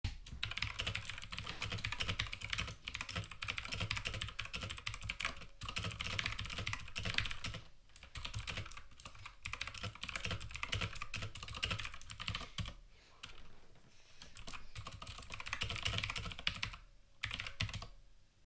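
Fast typing on a computer keyboard: a dense, irregular run of key clicks with a few brief pauses.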